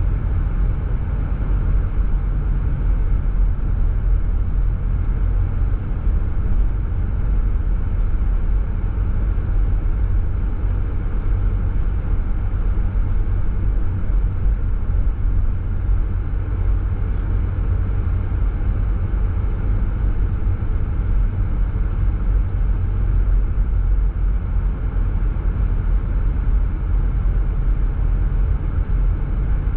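A car driving at a steady speed: a steady low rumble of engine and tyres on the road.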